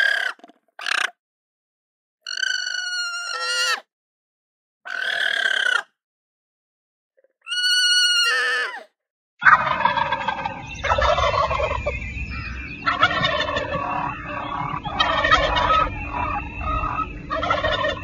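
Five short, high, wavering calls separated by silences, from llamas. Then, from about nine seconds in, a white domestic turkey gobbling repeatedly over a steady background hum.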